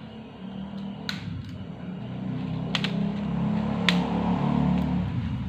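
Plastic N-scale Kato Unitrack model railway track handled and pushed along a ceramic tile floor, with a few sharp clicks of track against the tile. A low rumble swells through the middle and fades near the end.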